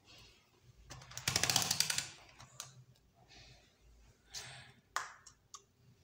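Handling of wires and multimeter test leads at a workbench: a clatter of quick clicks lasting about a second, starting about a second in, then a short rustle and a few single sharp clicks near the end.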